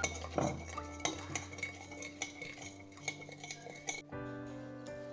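A utensil clinking and scraping against a bowl as cooked noodles are stirred and tossed with their seasoning sauces: quick, irregular clinks that stop about four seconds in.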